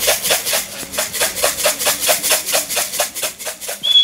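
Rapid, even rattling, about seven shakes a second, of grain shaken in a feed tin to call racing pigeons down to the loft. Near the end a steady high-pitched whistle starts.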